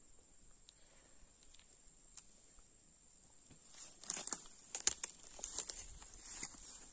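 A steady high-pitched insect hum. About four seconds in comes a run of sharp crackles and rustles, like dry grass and twigs being trodden or handled.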